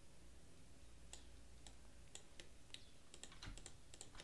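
Faint, scattered clicks of a computer mouse and keyboard keys, irregular and spaced a fraction of a second apart.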